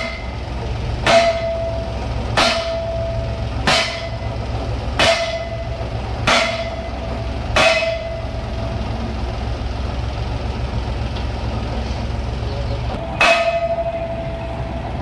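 Hammer blows on an upright metal bore-drilling pipe: seven clanging strikes about 1.3 s apart, each leaving a short ringing tone, then a pause and one more strike near the end. The drilling rig's engine hums steadily underneath.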